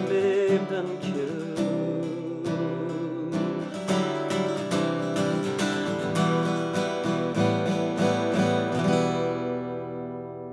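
Acoustic guitar strummed in the closing bars of a song, then a final chord left to ring and fade out from about nine seconds in.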